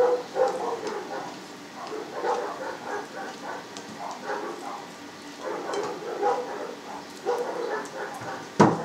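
A pet animal making many short, repeated pitched calls, over and over.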